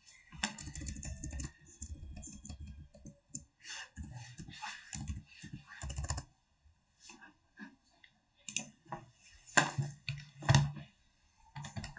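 Computer keyboard being typed on in irregular runs of keystrokes as figures are entered into a document, with a couple of louder taps near the end.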